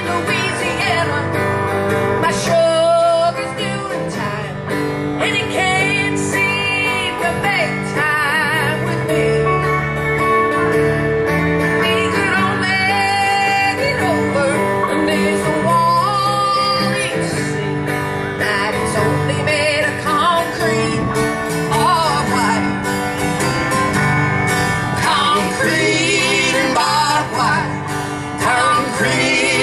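Live acoustic country band music: guitars and a bass line playing a country song.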